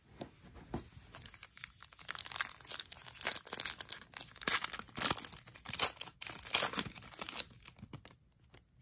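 Foil wrapper of a Panini Chronicles football card pack being torn open and crinkled by hand: a dense run of crackling and tearing, loudest in the middle and fading out near the end.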